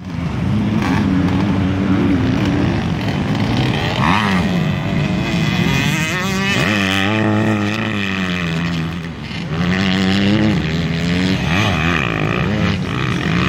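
Several small two-stroke motocross bikes running around a dirt track, their engine pitch repeatedly rising and falling as the riders rev and shift.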